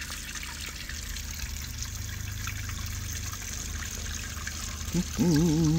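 Kitchen faucet running a steady stream into a mixing bowl in a stainless steel sink, filling it with water to rinse out batter. Near the end a person's voice briefly sounds over the water.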